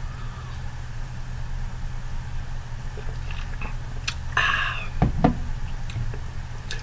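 A person swallowing gulps of a canned soft drink, then a short breathy exhale about four seconds in and a low knock a second later, over a steady low hum.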